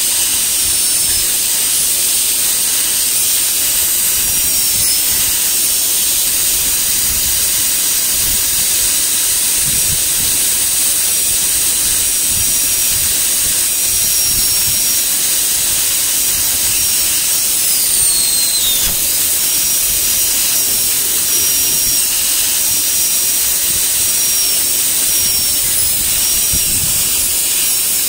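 Air-turbine high-speed dental handpiece running with water spray: a steady high whine over hiss, dipping briefly in pitch now and then as the flat-end diamond bur cuts a shoulder finish line on a typodont incisor, with one deeper drop about eighteen seconds in.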